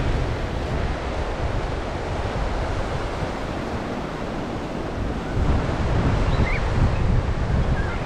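Sea surf washing onto a sandy beach, with wind buffeting the microphone; the wind rumble grows stronger about five and a half seconds in.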